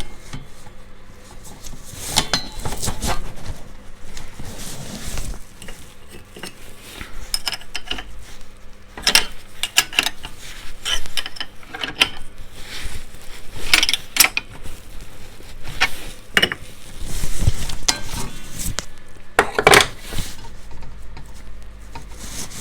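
Irregular metal clinks and knocks of a spanner and blade clamp working on a mitre saw's left-hand-threaded arbor bolt as it is tightened to hold the blade.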